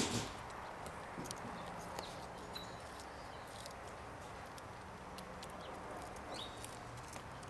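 A squirrel gnawing kernels off a corn cob: small crunching clicks at an irregular pace, with one louder knock right at the start.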